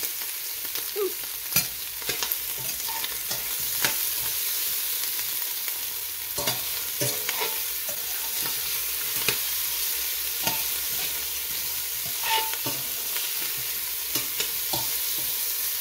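Onion chunks with garlic and ginger sizzling in hot oil in a stainless steel pot, stirred with a metal spoon that scrapes and knocks against the pot every second or so, one knock ringing briefly.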